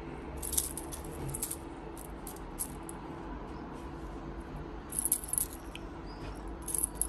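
A feather wand cat toy rustling and lightly clinking in irregular short bursts as a cat paws and bites it, its metal clip and beads jingling.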